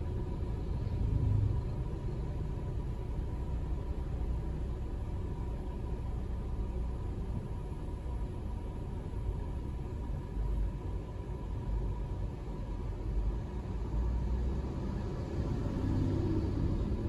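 Low, steady rumble of a car driving slowly in traffic: engine and tyre noise. Near the end a passing truck adds a louder rumble.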